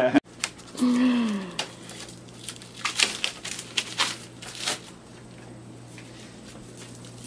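Plastic shrink-wrap on a stack of new skateboard decks crinkling and rustling in short bursts as it is handled, over a steady low hum. A brief falling vocal sound comes about a second in.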